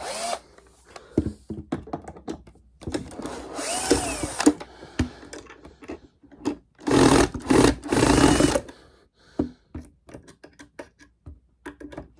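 Power drill unscrewing the screws of a door closer's mounting piece, in two runs with its motor speeding up and slowing, with short clicks and taps between the runs.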